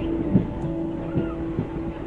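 Passenger train running along the track, heard from on board: a steady hum with a few short knocks of the wheels over the rail joints.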